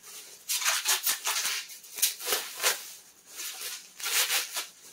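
Plastic bubble wrap crinkling and rustling in the hands as it is pulled off a package, in irregular crackly rustles with louder crinkles every second or so.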